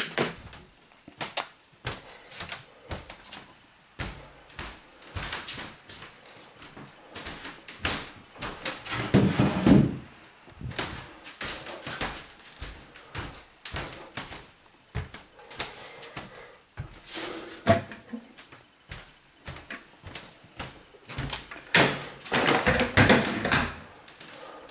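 Storage boxes being handled and stacked in a small room: scattered knocks and bumps, with two longer, louder spells of handling noise, about nine seconds in and again near the end.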